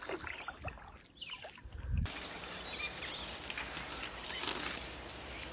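Outdoor background noise: scattered faint sounds for about two seconds, then an abrupt change to a steady hiss with a few short, high chirps.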